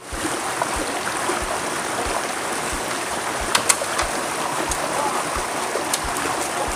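River water rushing steadily as a small cascade pours over rocks into a pool, with a few short sharp splashes or clicks about three and a half seconds in.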